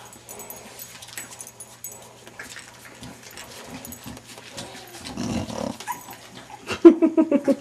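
English bulldogs making faint rustling and small clicking noises. About five seconds in comes a breathy low grunt. Near the end there is a loud, short run of rapid throaty grunts, about ten a second.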